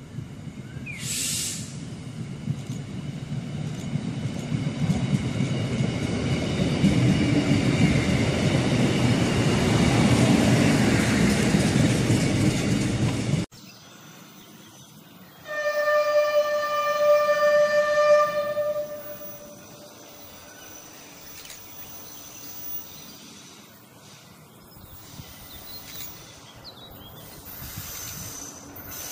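DB Class 628 diesel railcar approaching and passing, its diesel engine and running noise building steadily for about thirteen seconds until the sound cuts off sharply. After a short quiet gap the train's horn sounds one steady tone for about three seconds, then only quiet background remains as the railcar draws near.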